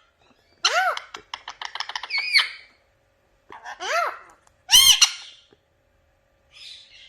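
Pet parrot squawking and chattering: several short, arching calls, a quick run of clicks about a second in, a loud call near the five-second mark and a faint one near the end.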